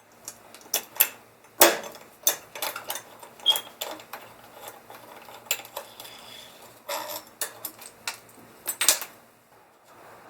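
Irregular clicks and clanks of small hard objects being handled, over a faint steady low hum.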